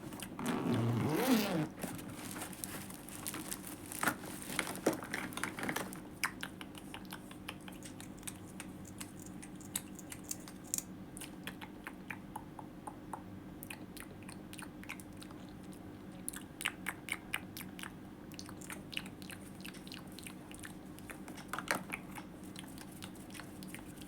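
Close-miked ASMR mouth sounds: wet clicks and smacks, irregular, with a louder burst about a second in.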